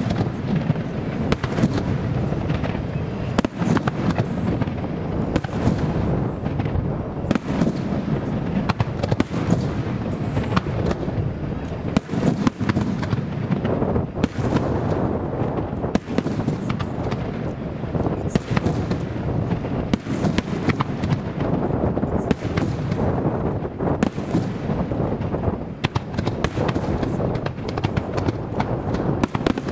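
Dense fireworks barrage: a continuous rumble of shell bursts, with many sharp reports and crackles in quick succession. Strong wind buffets the microphone.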